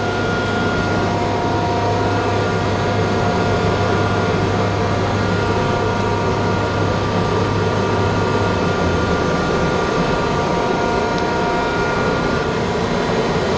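Steady drone of a running three-phase machine unit, several constant tones over an even noise with a low electrical hum, the hum dropping away about nine seconds in.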